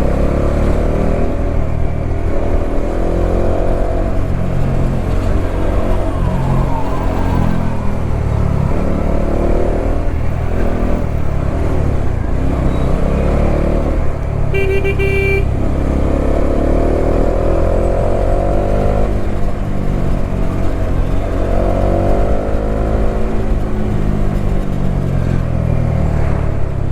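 Bajaj Dominar 400's single-cylinder engine running under way, its revs rising and falling several times as it pulls through the gears. A vehicle horn honks once, briefly, about halfway through.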